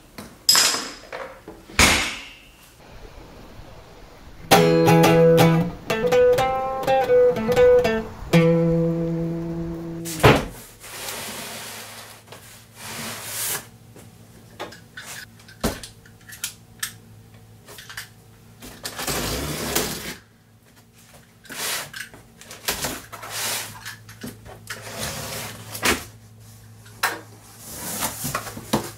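A few sharp knocks, then a short plucked-string jingle of a few notes lasting about five seconds. After that comes the crackling, rustling and scraping of a cardboard shipping box being handled and opened by hand, over a low steady hum.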